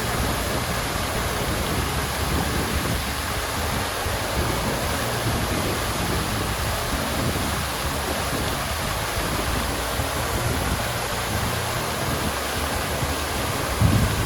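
Water fountain splashing, a steady rushing of falling water, with a brief low thump near the end.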